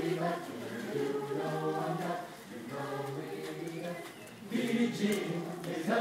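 Mixed choir of men's and women's voices singing a cappella in short phrases, with brief dips between them and a louder entry about four and a half seconds in.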